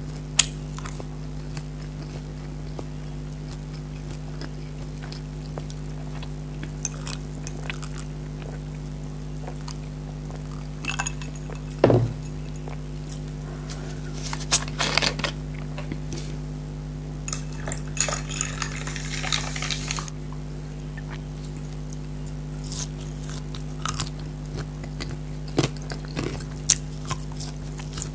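Mukbang eating sounds: scattered bites, crunches and clinks of dishes over a steady low hum. About 17 seconds in there are roughly two seconds of pouring hiss, Coke being poured.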